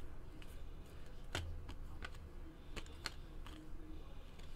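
Stiff, glossy O-Pee-Chee Platinum hockey cards being fanned and slid against each other in the hands: a few faint, sharp clicks and rustles over a low steady hum.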